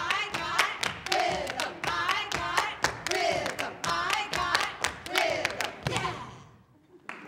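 Rhythmic clapping and stomping, several sharp strokes a second, with voices giving short sliding calls over it. It fades out about six and a half seconds in.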